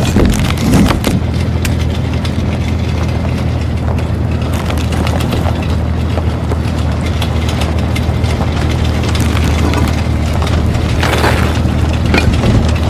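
Stock sound effect of a large vehicle engine running with a steady low rumble, overlaid with scattered crunching and clattering knocks and a brief swell of noise near the end.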